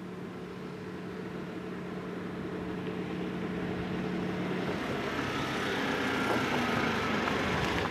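A motor vehicle's engine, growing steadily louder as it approaches. A steady low hum underneath stops a little past halfway.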